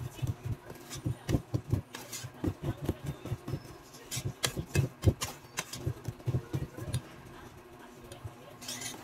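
Wire whisk beating cake batter in a stainless steel bowl: quick repeated strokes, the wires clicking and scraping against the metal, easing off near the end.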